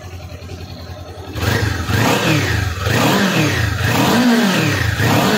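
Kawasaki Ninja 400's parallel-twin engine with its stock exhaust, idling warm in neutral, then revved in a series of quick throttle blips from about a second and a half in, each rising and falling back.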